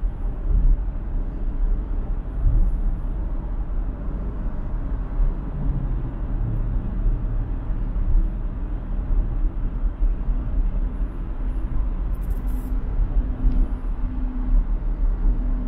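Road noise of a car driving at highway speed: a steady low rumble of tyres and wind. A faint hum comes and goes in the second half.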